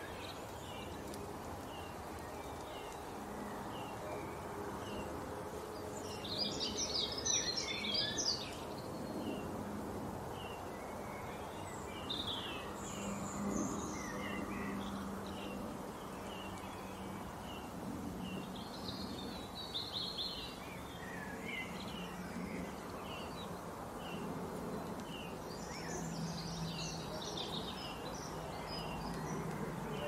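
Birds calling and singing: short chirps repeating steadily, with several bursts of rapid, higher song, over a steady background hiss.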